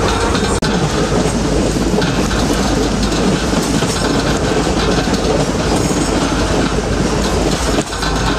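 Heritage steam train running along the track, heard from on board: the steady noise of the carriages rolling over the rails, cutting out briefly twice.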